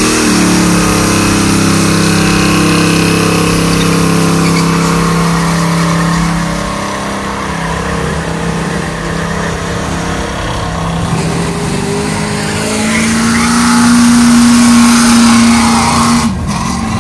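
Chevrolet El Camino doing a burnout: its engine is held at high revs while the spinning rear tyres squeal, for about six seconds before the revs drop away. Later a second car's engine revs up and holds high for a few seconds, then cuts off suddenly near the end.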